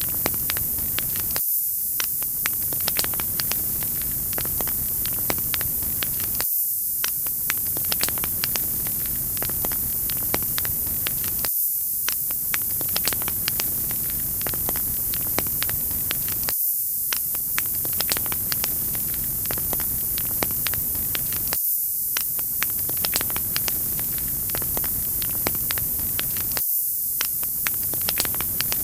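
Wood fire crackling, with frequent sharp pops over a steady hiss. The same short stretch of fire sound repeats about every five seconds.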